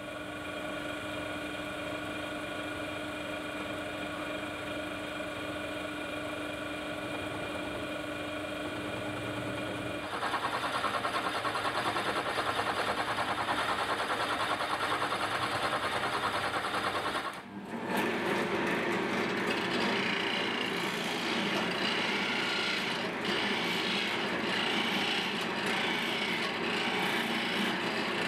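An electric drill's motor runs with a steady hum. From about ten seconds in, its large wood-boring bit cuts into black cherry, a rougher and louder grinding noise with chips coming off. After a brief break past the middle, a wood lathe spins a cherry spindle while a gouge cuts it.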